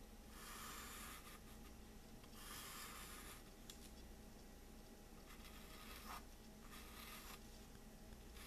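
Vine charcoal scratching faintly across a primed canvas panel as stripe markings are drawn, in several strokes about a second long with short pauses between.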